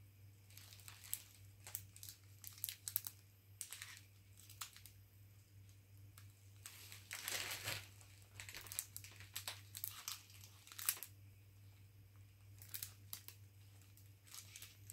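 Faint crinkling and crackling of a clear-windowed plastic and cardboard model-car box handled in the hand. The crackles come in short scattered bursts, with a longer rustle about seven seconds in, over a steady low hum.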